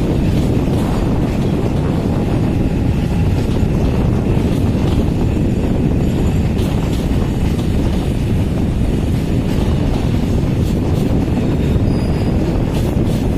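Freight train running along the track: a steady low rumble of wheels and running gear, with scattered sharp clicks from the rails.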